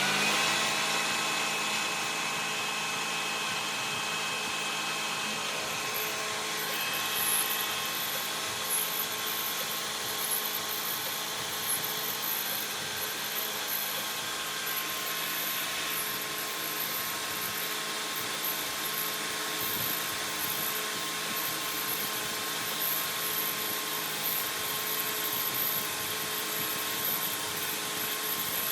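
CNC knee mill spindle, just spun up at cycle start, running steadily while the mill works through a program that bores out two holes. A high thin whine joins in about six seconds in.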